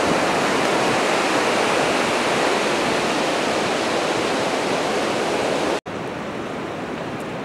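Surf breaking on a beach, a steady rushing noise. It cuts out for an instant about six seconds in and then carries on more quietly.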